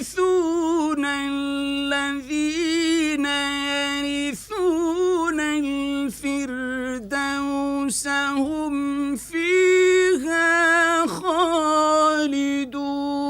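A male reciter chants the Quran in the melodic mujawwad style, unaccompanied. He holds long notes with wavering ornaments, in several phrases with short breaths between them.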